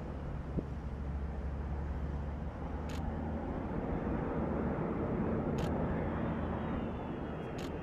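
Distant jet engines of a large four-engine military transport on low approach: a steady low rumble, with a faint high whine that dips and rises near the end.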